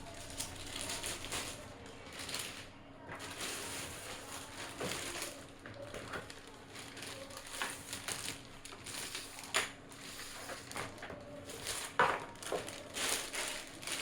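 Keyboard and its packaging being handled during unboxing: irregular rustling and crinkling, with a few sharp knocks, the loudest about twelve seconds in.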